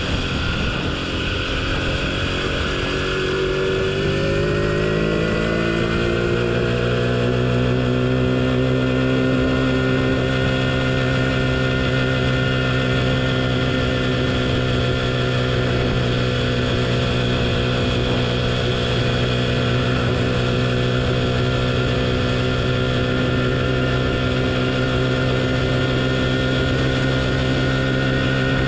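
49cc engine of a small motorbike pulling up through the revs over the first six seconds or so, then holding a steady speed while cruising.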